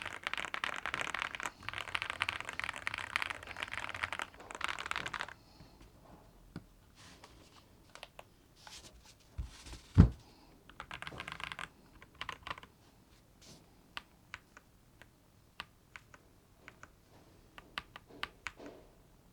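Keystrokes on a Monsgeek M1 V5 mechanical keyboard. Fast continuous typing for about five seconds, then scattered single key presses and a short burst, with one loud low thump about ten seconds in.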